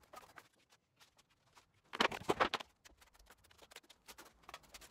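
A trowel scraping and tapping as lumps of gypsum adhesive are dabbed onto a wall for bonding plasterboard: a run of short scrapes and clicks, with a louder burst of scraping about two seconds in.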